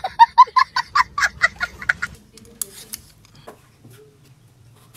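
A small child laughing hysterically in quick, high-pitched bursts, about six a second, for about two seconds. A few faint knocks follow.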